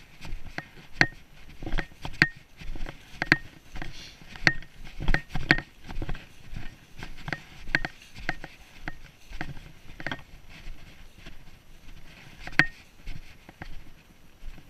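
Irregular sharp clicks with a brief ringing tick, about one or two a second, from a body-worn action camera's mount knocking as the wearer moves. One louder knock comes near the end.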